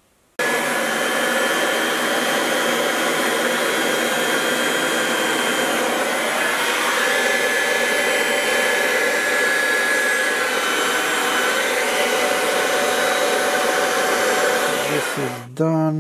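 Hot-air gun blowing steadily to shrink heat-shrink tubing over soldered wire joints. It switches on suddenly about half a second in and winds down near the end.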